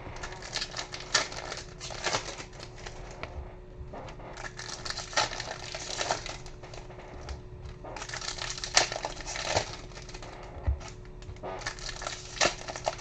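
2020 Bowman baseball card box and foil packs being handled and torn open: crinkling and rustling in four bursts, with sharp crackles.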